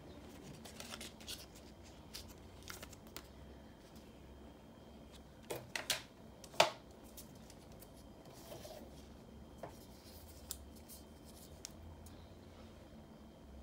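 Hands handling plastic earphone packaging and a coiled charging cable: scattered light clicks and rustles, with three sharp clicks or knocks about halfway through, the last the loudest.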